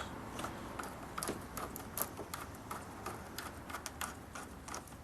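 Flathead screwdriver turning the screw of an intake hose clamp, giving irregular light clicks, about three a second.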